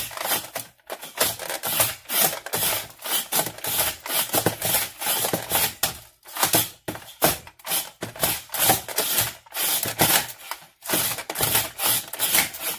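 Slice-O-Matic handheld plunger slicer pushed down again and again, its plastic body clacking as the blade cuts raw potato into thin slices. The strokes come in a quick, uneven clatter with a few short pauses.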